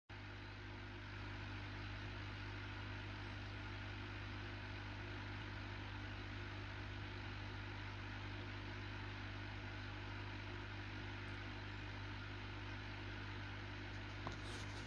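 Steady low electric hum of aquarium equipment, such as a running filter or pump motor, over a faint even hiss. There is one light click near the end.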